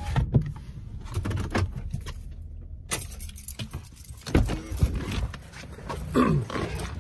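Handling noises inside a parked car: keys jangling among scattered clicks and knocks, a couple of heavy thumps, and the driver's door opening as he climbs out.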